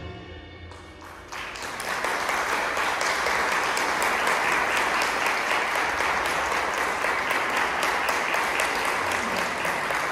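The last notes of the music die away, and about a second in an audience breaks into steady applause that continues evenly.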